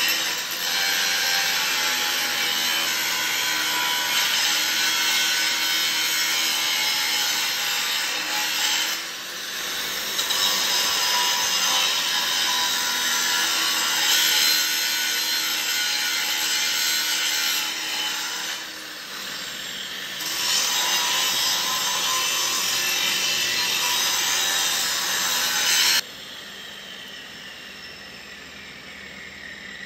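Milwaukee angle grinder grinding steel, a loud continuous grinding with two brief easings. It cuts off suddenly near the end.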